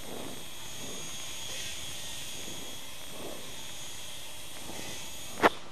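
Steady operating-room equipment noise during hip arthroscopy: an even hiss with a faint high whine, and a single sharp click near the end.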